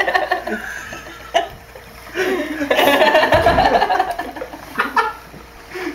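People's voices: chuckling and laughter mixed with indistinct talk, with a brief low bump a little past the middle.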